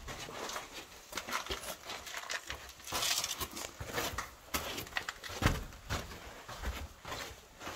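Footsteps scuffing and crunching on gritty sand and rock, irregular, with a longer scraping hiss about three seconds in and a dull thump about halfway through.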